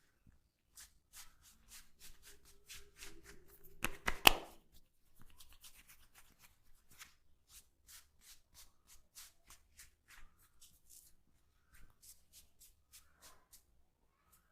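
Quick percussive hand strikes of an Indian head massage, about three sharp slaps or taps a second. A louder burst of snaps comes about four seconds in.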